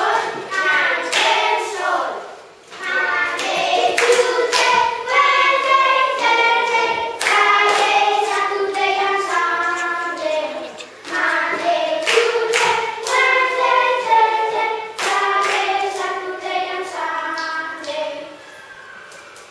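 A group of children singing a clapping rhyme together, with hand claps keeping the beat. The singing drops away near the end.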